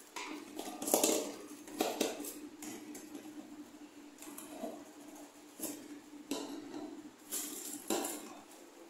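Plastic storage containers being handled and set down on a wooden tabletop, giving irregular light clacks and knocks, with a plastic grocery bag crinkling as items are taken out.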